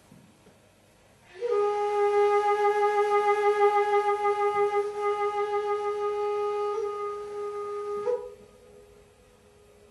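A wind instrument, flute-like, holds one long steady note for about seven seconds, starting a little over a second in and stopping cleanly.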